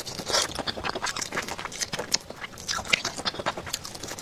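A person biting and chewing crunchy fried food: a dense, irregular run of short crisp crunches.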